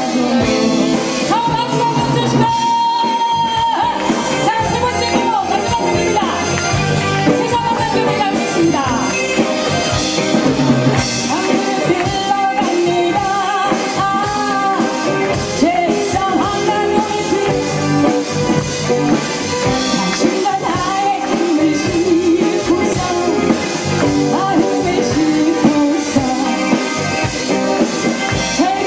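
A live band performing a Korean pop song: a woman sings the lead through a microphone over electric guitars and a drum kit.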